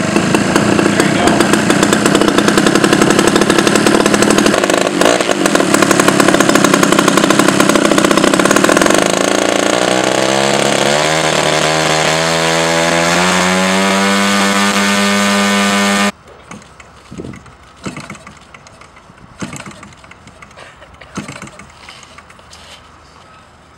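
Small aircraft engine on a test stand running loud at full throttle, then throttled back with a falling pitch and held at a lower speed before it cuts off suddenly about 16 seconds in. A few faint knocks follow.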